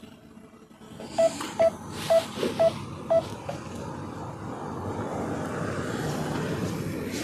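Five short electronic beeps at one pitch, about half a second apart, then a drone's steady whirring hum that builds up and holds.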